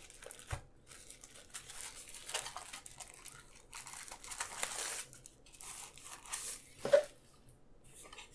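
Plastic protective wrap crinkling and tearing as it is peeled off a small electronics box, in irregular rustling bursts, with one brief louder sound about seven seconds in.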